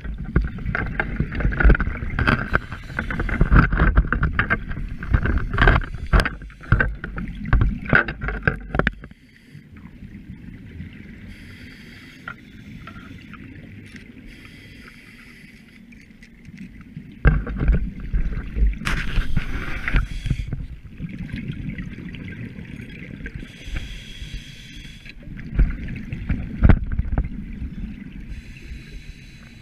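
Underwater sound picked up by a diver's handheld camera housing: low rumbling and rapid clattering knocks as the housing is handled and moved over the rocks, easing off about nine seconds in. Short hissing bursts of scuba exhaust bubbles come every few seconds.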